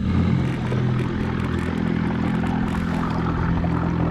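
A motor running at a steady pitch: an even, low drone.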